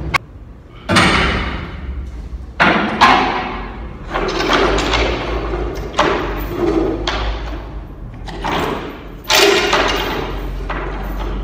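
A series of about eight heavy knocks and clanks, each trailing off in a long echo. They come from a silo unloader's blower pipe being set down through the door chute of an empty concrete upright silo, the pipe knocking against the chute.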